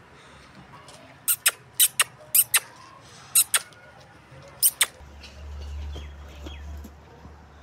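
Calf suckling from a goat's teat: a run of sharp, wet mouth smacks, several in quick pairs, between about one and five seconds in. A low steady rumble comes in after about five seconds.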